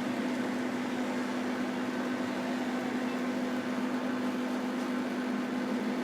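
Hot-air rework heat gun running, its blower giving a steady whir with a hum, while it heats a phone's charging jack to melt the solder and lift the jack off the board.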